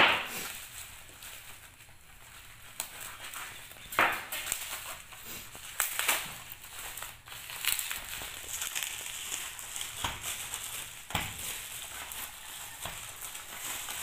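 Bubble wrap and plastic packaging being pulled apart and unwrapped by hand: irregular crinkling and crackling, with a few sharper snaps now and then.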